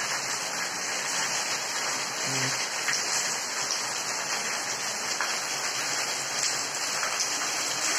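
Heavy rain falling steadily: an even, dense hiss of rain with no let-up.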